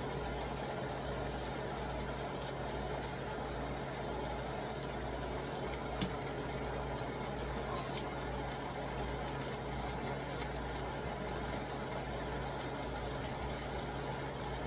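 A skillet of pork and shredded red cabbage sizzling steadily over a gas burner, over a low steady hum, with a single faint click about six seconds in.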